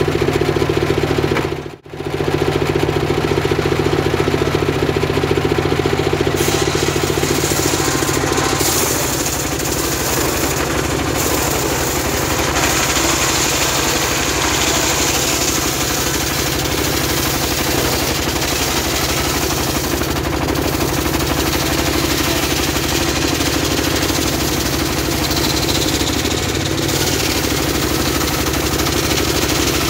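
Homemade engine-driven circular saw running steadily while its blade rips lengthwise through a log of very hard wood. The cutting adds a harsh, high hiss from about six seconds in. The sound drops out briefly near two seconds.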